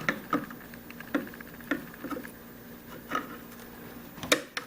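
Irregular light clicks and knocks from hands handling the drone controller and its plugged-in cables, the loudest near the end, over a faint steady hum.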